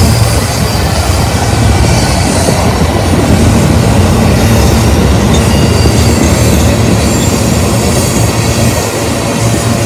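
Freight cars (covered hoppers and tank cars) of a long train rolling past close by: a loud, steady rumble and clatter of steel wheels on the rails.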